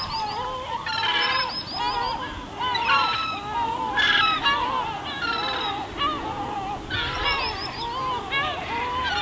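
Seagulls calling over and over, several birds at once, their short, pitched cries overlapping in quick succession.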